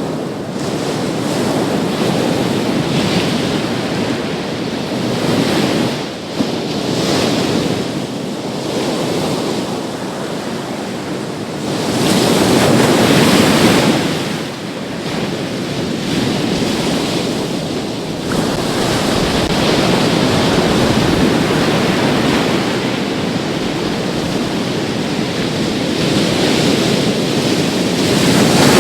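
Big sea waves breaking on a beach in a steady wash of surf that swells and eases, with the loudest crash about twelve seconds in and another building near the end.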